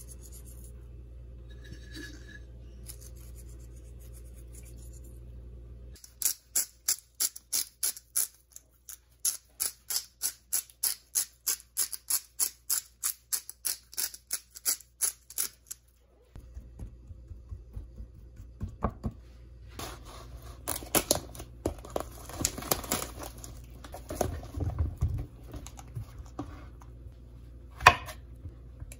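Raw T-bone steaks being seasoned: a run of sharp, evenly spaced strokes of a seasoning shaker, two or three a second, for about ten seconds. Near the end a chef's knife chops mushrooms on a wooden cutting board, with one loud chop.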